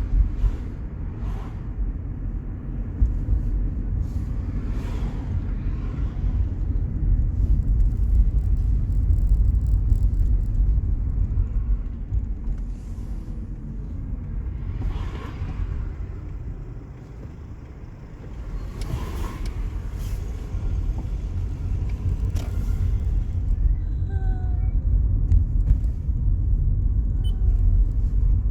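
2007 Toyota Prius rolling at about 5 mph with a low rumble, and a faint squeal from the front wheels that comes and goes, with a few short chirps near the end. The squeal happens with the brakes off; a garage put it down to the front brakes and pads, which the owner doubts.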